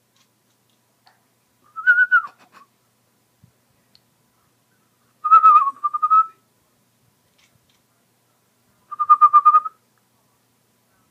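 A person whistling three short, wavering whistles a few seconds apart.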